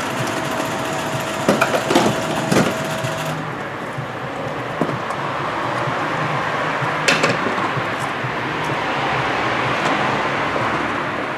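Handling at a petrol pump: a few sharp clicks and knocks of the fuel nozzle in the first three seconds and one more about seven seconds in, over a steady mechanical whir. A steady tone sounds for the first three seconds.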